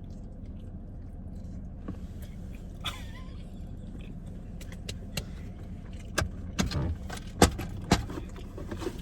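Steady low hum of a car cabin, with a scatter of sharp clicks and knocks in the second half, the loudest two about half a second apart near the end.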